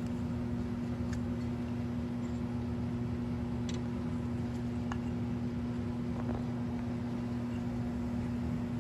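A steady low hum holds at one level throughout, with a few faint light clicks, about a second, three and a half seconds and five seconds in, as small gas-cap parts are handled.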